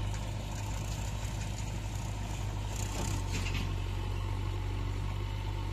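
Diesel engine of a JCB 3DX backhoe loader running steadily, a low even drone, as it pushes against a loaded tractor-trolley.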